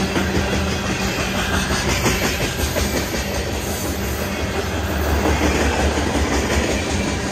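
Freight cars of a mixed manifest train, covered hoppers and tank cars, rolling past with a steady rumble, their steel wheels clicking over the rail joints.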